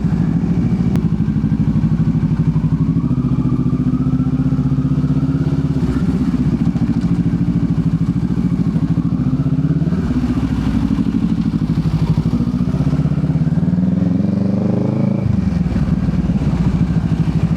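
Motorcycle engine running steadily under way, its pitch rising and easing with the throttle. Near the end a rising rev drops off suddenly.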